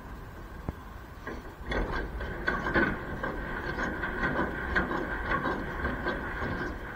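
Articulated trailer's landing legs being wound by their hand crank: the leg gearbox whirs steadily with irregular clicks and knocks as the handle turns.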